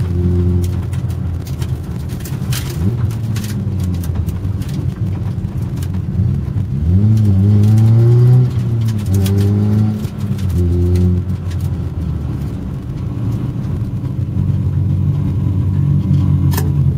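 Competition car's engine heard from inside the cabin, revving up and dropping back through gear changes, with knocks and rattles over the rough road. Near the end it settles to low, steady revs as the car slows to a crawl.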